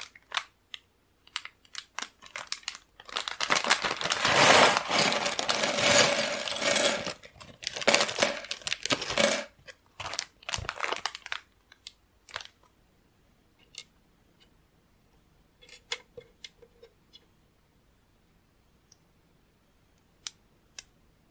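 Plastic LEGO polybag crinkling and tearing open for several seconds, then small plastic pieces tipping out with a clatter. After that come scattered light clicks of LEGO bricks being handled and pressed together.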